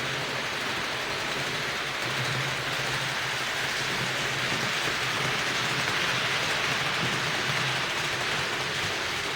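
HO-scale model train running on the layout's track: a steady, even rolling hiss with a low hum that comes and goes.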